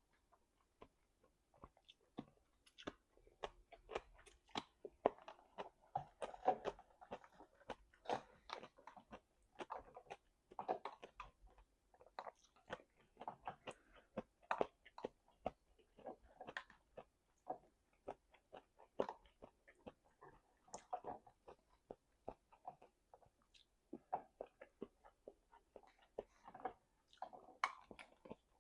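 A person chewing and biting food, a dense, irregular run of short mouth clicks and bites with no pauses longer than a moment.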